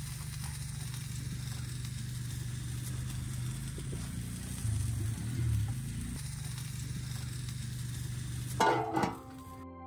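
Steady low hum with a few soft thuds around the middle as raw organs are put into a large pot of water. Near the end there is a sharp clatter, then gentle background music comes in.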